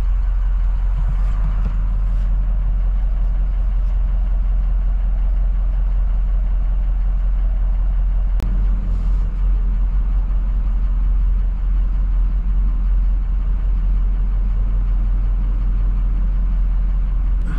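Pickup truck's engine running, heard from inside the cab as a steady low rumble, with a single sharp click about eight seconds in.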